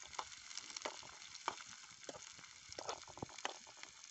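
Chopped onions frying in oil in a small steel frying pan: a steady sizzle, with scattered irregular clicks and scrapes from a metal spoon stirring in the pan.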